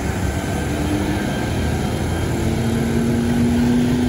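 Diesel engine of a big tour bus, which the spotter takes by its engine sound for a Hino RM 280, running steadily as the bus goes by close to the road. A faint steady hum joins the low rumble about halfway through.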